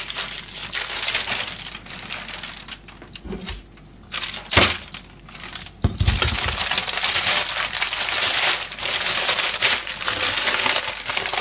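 Old newspaper crumpling and rustling as fish scraps are wrapped in it for the bin. The rustling dips and gives way to two or three sharp knocks around the middle, then comes back loud and continuous.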